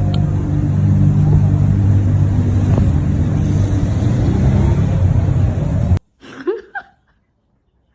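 Steady low rumble with a hum, like a motor vehicle running, that cuts off suddenly about six seconds in. A short, quiet call gliding up and down in pitch follows.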